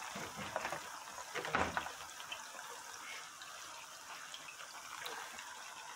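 Hot oil sizzling steadily as plantain slices deep-fry in the pan, with a brief knock about a second and a half in.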